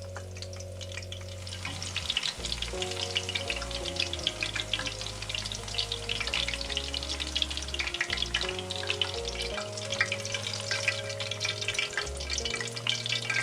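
Eggplant pieces deep-frying in hot oil: a steady, dense sizzle and crackle.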